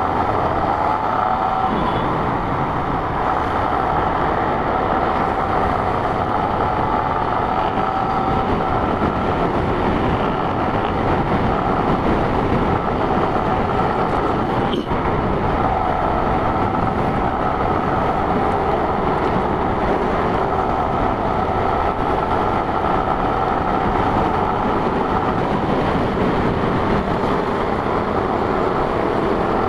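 Yamaha Sniper 150 motorcycle riding at a steady speed, its single-cylinder engine running under wind rush on the rider's microphone.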